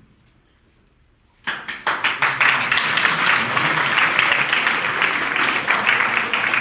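Audience applauding: quiet at first, then clapping starts suddenly about a second and a half in and carries on steadily.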